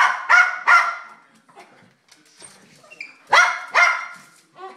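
Dog barking in short, high barks, three in quick succession and then two more about three seconds later, begging to be fed.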